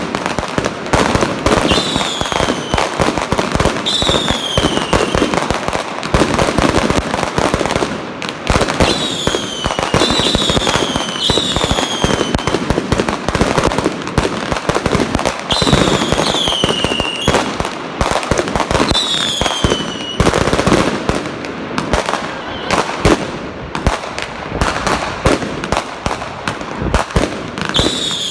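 A long string of Chinese firecrackers crackling in a dense, loud, unbroken stream, with fireworks going off among them. Shrill whistles that drop in pitch cut through about nine times, every couple of seconds.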